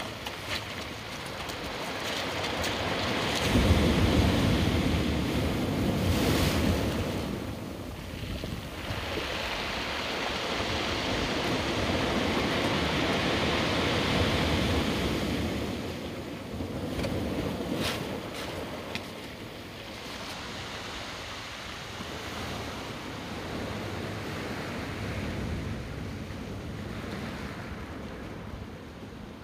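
Ocean surf breaking and washing over a rocky shore in slow surges, with wind on the microphone.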